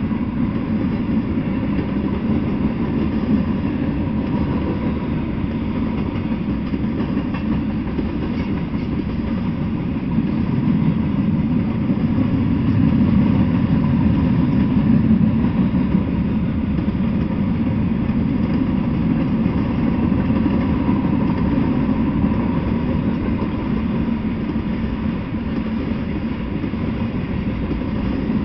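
Freight train rolling past: a continuous rumble of steel wheels on rail as tank cars and flatcars go by, growing slightly louder partway through.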